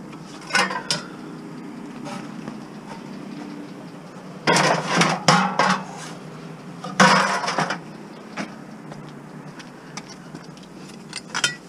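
Metal desk frame pieces clanking and clattering as they are handled and loaded into a car's cargo area piled with scrap metal, in bursts about half a second, four and a half, and seven seconds in, with a steady low hum underneath.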